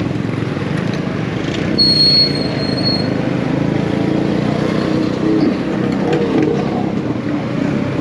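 Street traffic with a small engine running steadily close by, among passing motorcycles and auto-rickshaws. About two seconds in, a high, thin squeal sounds for about a second.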